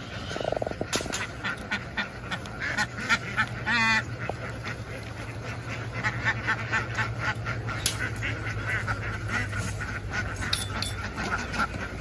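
A large flock of domestic ducks quacking densely and continuously, with a steady low hum underneath.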